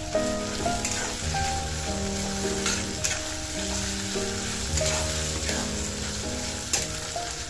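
Sliced onions sizzling in hot oil and ghee in a metal kadai, with a spatula scraping and clicking against the pan as they are stirred. Background music with held notes plays over it.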